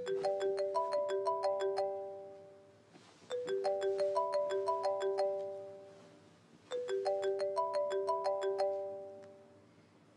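Mobile phone ringtone: a short melody of bell-like struck notes, played three times with a short pause between, each phrase dying away.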